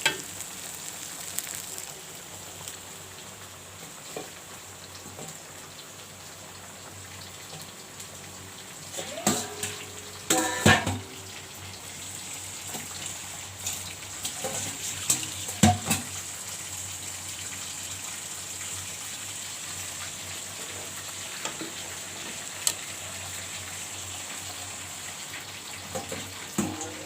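Food sizzling in hot oil in a pan, a steady hiss, with the spatula scraping and knocking against the pan several times, loudest around a third of the way through and again a little past halfway.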